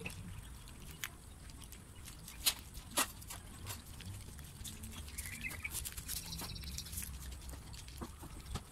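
Several cats crunching dry kibble from their bowls, with scattered sharp crunches and clicks at irregular intervals over a low background rumble.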